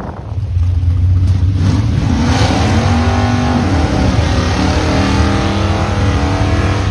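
Drag cars' engines held at high revs in a burnout at the starting line, their tyres spinning and smoking. The engine noise swells about half a second in, then stays loud and steady with a slightly wavering pitch.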